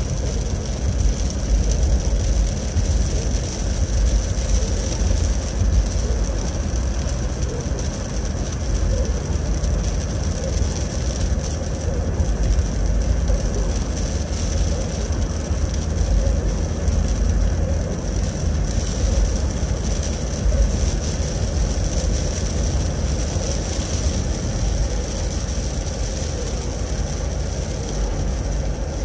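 Car driving: a steady low road and engine rumble heard from inside the cabin, with a constant high hiss over it.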